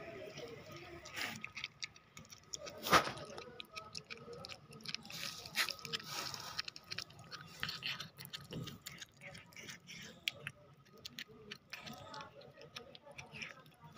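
Cat chewing raw chicken: irregular wet clicks and crunches as it bites and tears at the meat, with one sharper crack about three seconds in.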